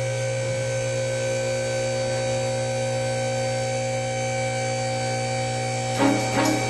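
Steady electrical hum made of several constant tones, like mains hum. About six seconds in, guitar music starts over it.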